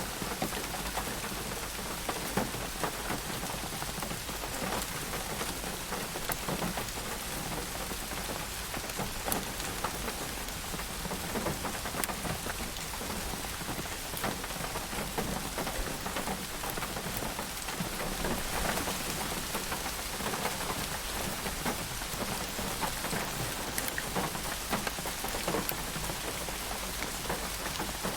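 Steady rain falling on a surface, a dense even hiss with many scattered individual drop ticks.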